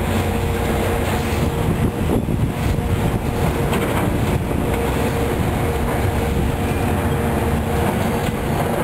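Heavy diesel demolition machinery running steadily, with scattered metal clanks and scraping as metal piping and debris are pulled out of a boiler room.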